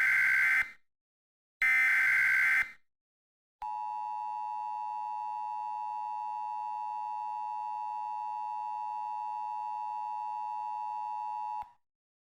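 Emergency Alert System alert opening: one SAME header data burst, a harsh digital screech, ends within the first second, and the last burst of the set follows at about a second long. Then the EAS two-tone attention signal sounds steadily for about eight seconds and cuts off.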